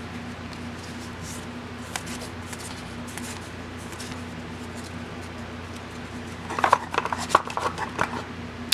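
Booster pack and trading cards being handled: faint rustling and a few light clicks, then a flurry of crisp crinkles and clicks near the end as the next pack is opened. A low steady hum runs underneath.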